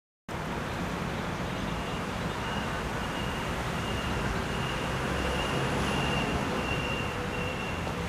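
Steady outdoor background noise, a low rumble with hiss, with a faint high-pitched tone pulsing on and off through it.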